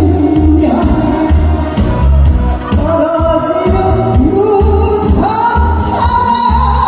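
A woman singing a Korean song into a microphone over amplified accompaniment with a steady bass beat. From about five seconds in she rises to a long, high held note.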